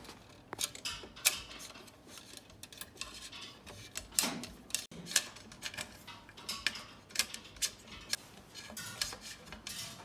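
Irregular light clicks, taps and scrapes of a brake cable and its housing being pushed through the internal routing ports of a carbon mountain bike frame.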